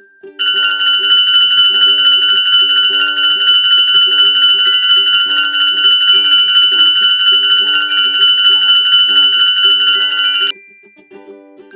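Loud, continuous high-pitched electronic alarm ringing, like a crossing warning alarm in a cartoon. It starts suddenly about half a second in and cuts off abruptly about ten seconds later, over background music with a steady beat.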